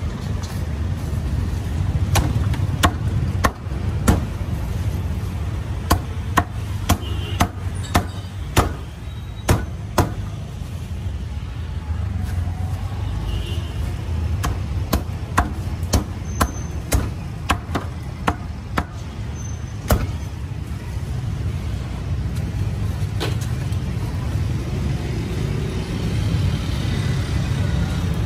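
A cleaver chopping on a cutting board: runs of sharp strikes, about two a second, that stop about two-thirds of the way through. Steady street-traffic rumble underneath.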